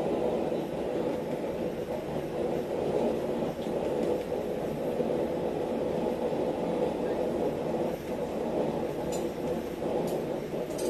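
Forge running with a steady, even roar while the tong pieces heat, with a faint clink or two near the end.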